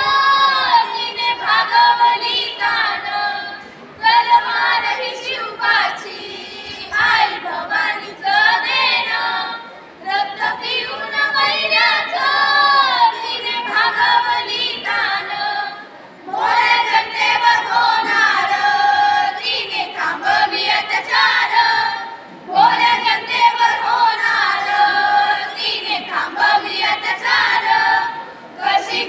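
A group of schoolchildren singing a song together in unison, in phrases of about six seconds with short breaths between them.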